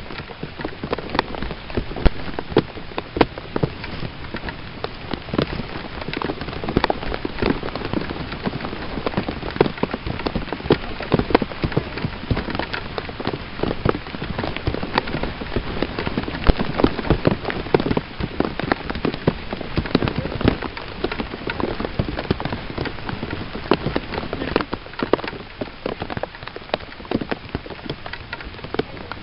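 Steady rain falling, with many sharp ticks of drops landing close to the microphone.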